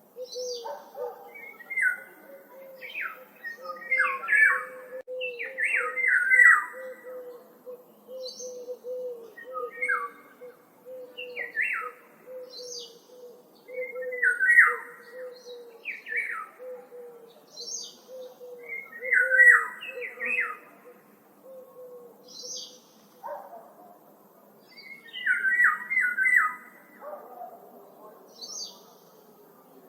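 Woodland birds singing: short, bright song phrases repeating every couple of seconds. Beneath them runs a steady series of low pulsed notes that stops about three-quarters of the way through.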